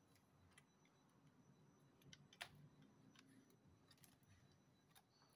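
Near silence with a few faint, scattered clicks; the clearest is a single sharp click about two and a half seconds in.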